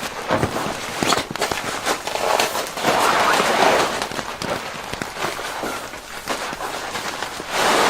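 Irregular knocks, clicks and rustling, with a louder rustling swell about three seconds in and another near the end.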